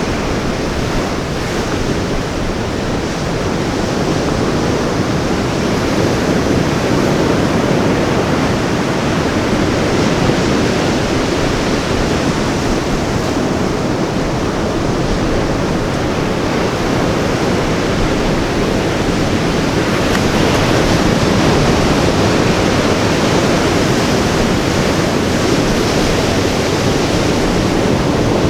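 Ocean surf breaking and washing on a beach: a steady rush that grows a little louder in the last third.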